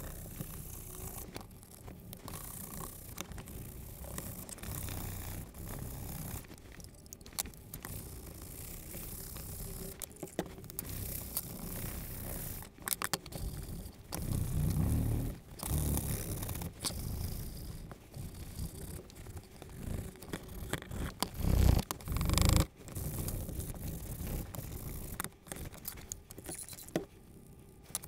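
Saddle soap being rubbed into thick vegetable-tanned leather with an applicator and a rag by gloved hands: uneven scrubbing and scraping with small clicks as the pieces and tins are handled on a cutting mat. A few louder low thumps come around the middle.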